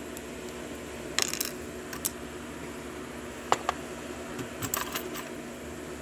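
Metal clicks and clinks from a euro cylinder lock being handled on the bench. They come as a few short groups: one just after a second in, a single click at about two seconds, a pair halfway through, and a quick run near the end.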